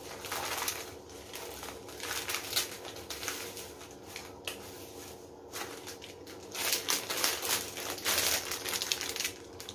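Packaging crinkling and rustling by hand as a jewellery set is unwrapped, in irregular bursts that are loudest about seven to nine seconds in.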